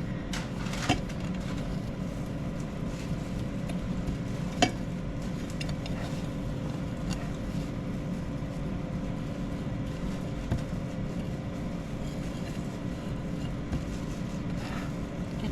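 Kitchen sounds of a tuna steak being pressed into a panko and sesame seed coating in a dish, with a couple of light knocks against the dish over a steady hum.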